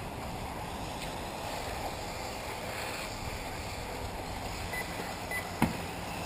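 Steady rushing outdoor noise, wind on the microphone, over the faint running of electric 1/8-scale RC buggies on the track, with one sharp click about five and a half seconds in.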